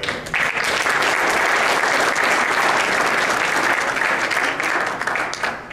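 Audience applauding, a dense, steady clapping that starts abruptly and dies away near the end.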